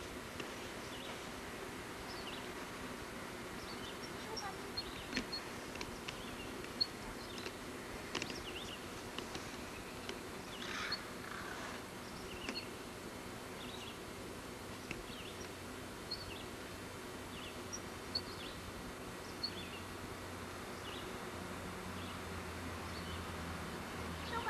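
Faint outdoor ambience: scattered short, high chirps over a steady low hum, with a few light ticks.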